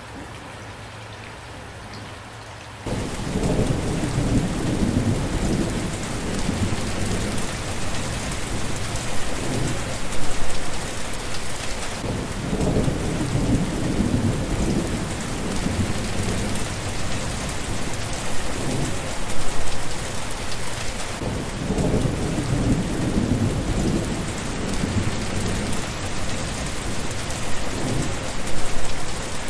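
Steady rain hiss that jumps suddenly louder about three seconds in, as heavy rain with thunder takes over. Low thunder rumbles keep swelling and fading under the downpour, with several louder peaks.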